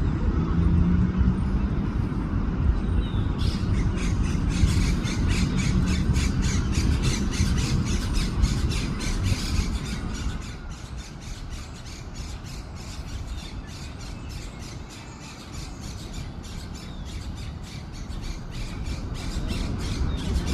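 Southern crested caracara (carancho) calling: a long run of harsh, evenly repeated squawks, about three a second, starting a few seconds in, over a low background rumble that eases about halfway through.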